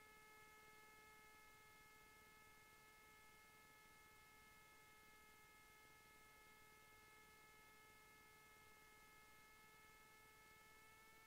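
Near silence: only a faint steady hum made of several high, level tones.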